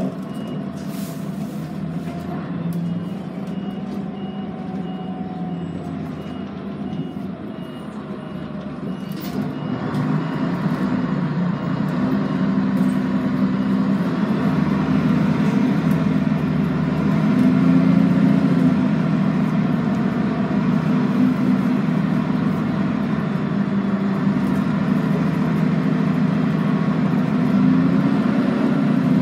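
Scania N113CRB city bus heard from inside the passenger cabin while under way: its 11-litre six-cylinder diesel running, growing louder from about ten seconds in as the bus picks up speed, with shifts in engine pitch later on. A repeated high beep sounds for several seconds near the start.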